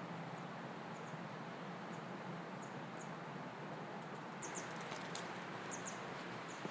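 Small birds giving short, very high chirps, scattered at first and more frequent in the last two seconds, over a steady outdoor background hum.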